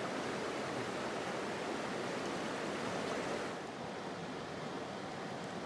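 Creek water rushing over rocks, a steady noise that becomes slightly quieter and duller about three and a half seconds in, with a couple of faint ticks near the end.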